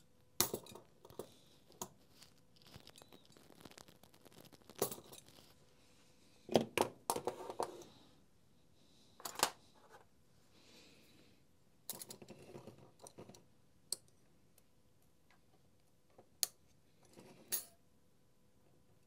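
Irregular metallic clicks and clinks as a retaining ring (circlip) is worked off the motor rotor shaft of a Makita DTM52 multitool, with small parts and tools being handled. There are clusters of clinks about a third of the way in and again past halfway, with single sharp clicks near the end.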